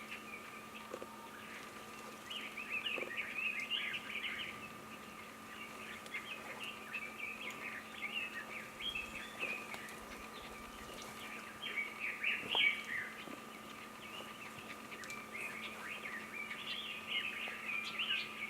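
Red-billed leiothrix calling: quick, chattering twitters in several bouts, over a faint steady hum.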